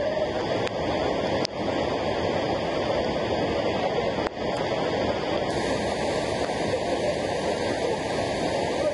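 Steady rush of a waterfall's falling water, an even, unbroken noise, dipping out for an instant twice.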